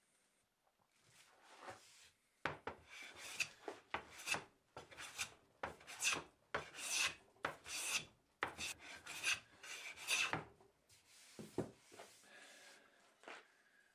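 Wooden hand plane taking a run of quick strokes along a wooden board, each stroke a short rasping swish of the iron cutting a shaving, about two a second; the strokes stop about three-quarters of the way through after one last pass.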